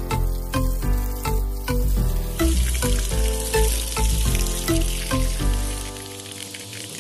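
Background music with a regular beat and strong bass, joined about two and a half seconds in by the steady hiss of a water jet spraying onto a tractor's painted metal bodywork.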